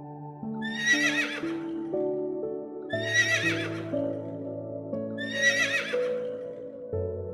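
Horse whinnying three times, the same high, wavering call about every two seconds, over soft ambient music.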